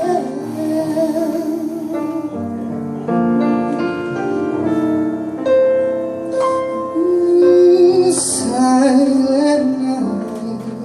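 Live jazz combo playing a Christmas carol medley: piano chords with bass underneath and a held, wavering melody line over them, with no words sung.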